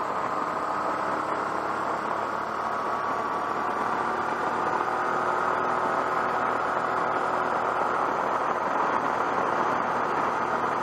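Motorcycle riding at road speed, heard from a bike-mounted camera: a steady engine hum mixed with wind rush. The engine's pitch rises gently and the sound gets a little louder about four seconds in, as the bike picks up speed.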